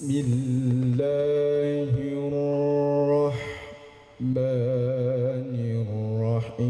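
A man's voice reciting the Qur'an in the melodic tilawah style, drawing out long held notes. He pauses for breath a little past the middle, then carries on with a second long phrase that wavers with ornamented turns.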